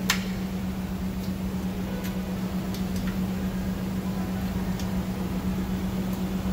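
Scattered sharp clicks and taps of hand tools and parts being handled during engine disassembly, about half a dozen, the loudest right at the start, over a steady low hum.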